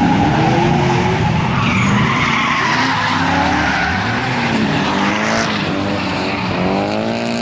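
Drift cars sliding through a corner: engines revving up and down at high revs over continuous tyre squeal, with one engine climbing in pitch near the end.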